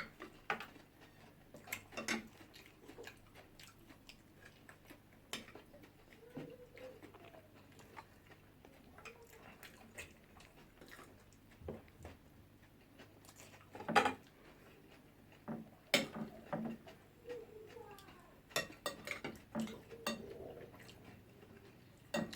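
Cutlery clinking and scraping against plates during eating, in scattered irregular taps, with a louder clink about two-thirds of the way through.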